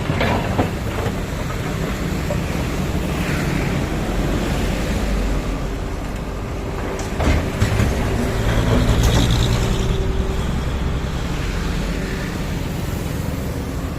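Heavy diesel machinery, excavator or dump truck, running steadily, with a sharp clank about seven seconds in.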